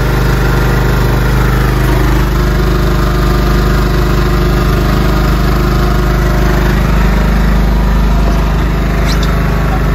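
Fishing boat's engine running steadily at low speed, held slow while an angler plays a fish.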